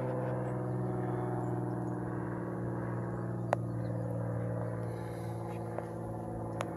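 A steady low machine hum with several even tones that does not change, and a single sharp click about three and a half seconds in.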